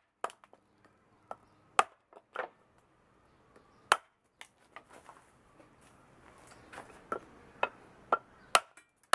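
Small carbon-steel (1095) chopper knife chopping into a pork rib bone on a wooden block: about a dozen sharp, irregular blade strikes. The loudest come about two and four seconds in and near the end, and the blows come faster over the last two seconds.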